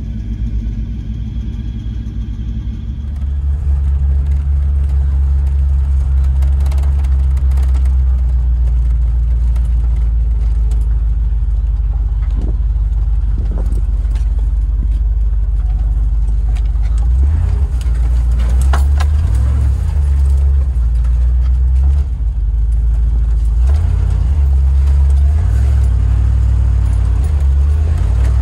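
Range Rover Classic driving over a rough dirt track, heard from inside the cabin: a steady low rumble of engine and tyres that rises and falls with the ground, with occasional knocks and rattles.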